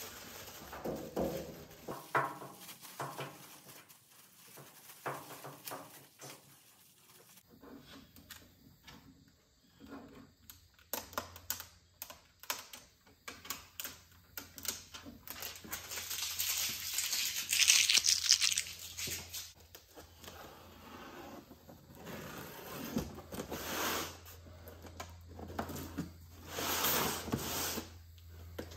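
Plastic packaging crinkling and tearing, with small knocks and clicks of handling. A longer ripping sound comes about halfway through and a shorter one near the end.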